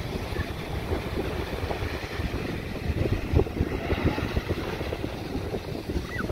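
Wind buffeting the microphone in an uneven low rumble, with small waves washing onto the beach behind it.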